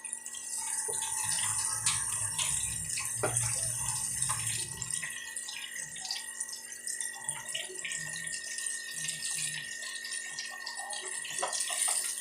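Chicken waffle balls deep-frying in hot oil: a steady sizzle with many small pops and crackles.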